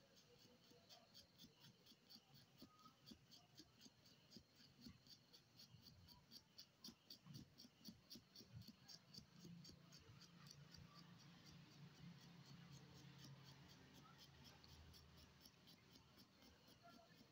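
Faint, quick scratching of a small metal blade scraping the graphite tip of a pencil into powder, in rapid, even strokes.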